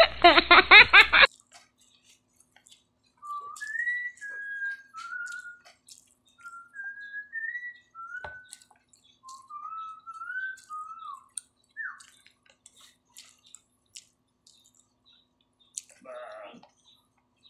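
Whistling of a slow tune in about a dozen single gliding notes over some nine seconds, starting about three seconds in. It is preceded in the first second by a short, loud burst of added sound effect that cuts off abruptly.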